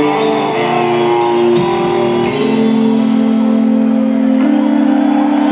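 Rock band playing live: electric guitars and drums, with a few cymbal crashes in the first few seconds. About halfway through, the band settles on one long chord held and ringing at the close of the song.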